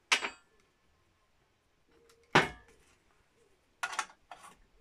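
Metal tools and parts clinking on a workbench as they are handled: a sharp clink right at the start, a louder knock with a brief ring about two and a half seconds in, and a quick run of small clinks near the end.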